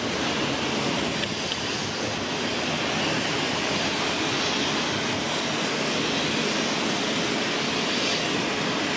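Bucur LF low-floor tram rolling slowly through a turn, a steady, even running noise of the tram on its rails.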